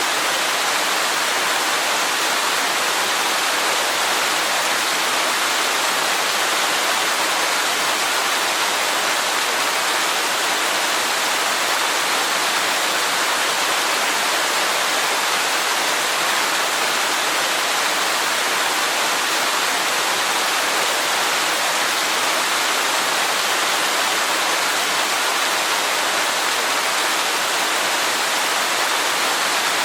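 Waterfall: water falling in a steady, unbroken rush, more hiss than deep rumble.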